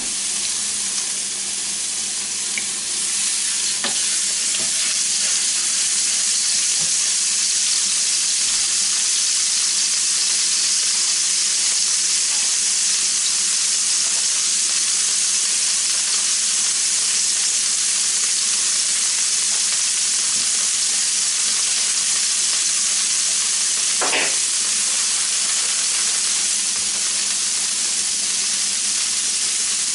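Half-pound ground beef patty frying in lard on a stovetop griddle pan: a steady sizzle.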